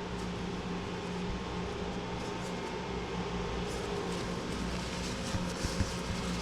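Steady low hum and hiss, with a few faint knocks near the end.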